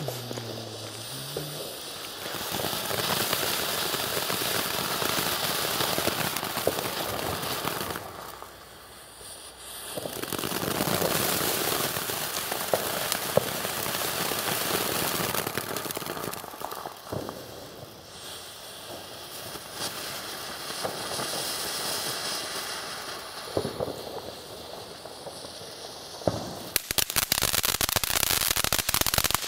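Ground fountain firework (a four-colour 'Farbenpracht' fountain) burning with a steady spark hiss that starts about two seconds in, swells and dips, then breaks into dense rapid crackling near the end.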